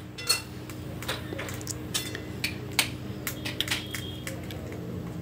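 Light, irregular clicks and taps in a home kitchen, about a dozen spread across the few seconds, over a steady low hum.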